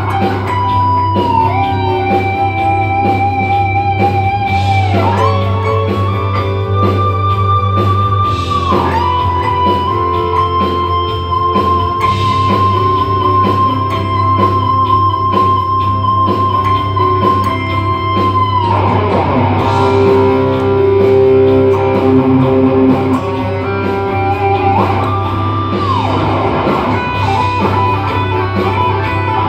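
Guitar music: a lead line of long held notes with vibrato, bending up and down between pitches, over a steady low bass. One note is held for about ten seconds near the middle.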